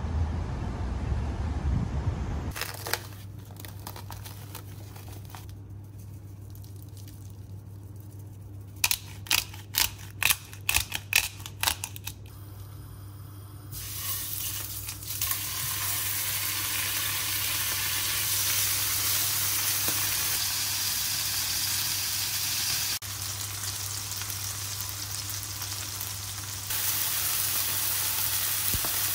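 Beef steaks sizzling in hot oil in a frying pan, a steady sizzle that starts about halfway through. Before it comes a quick run of sharp clicks and knocks, and the first two seconds hold wind and traffic noise.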